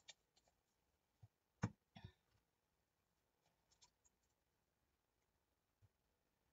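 Near silence in a small room, broken by a few faint clicks and light taps of craft supplies being handled, the loudest a soft knock about a second and a half in followed by a brief rustle.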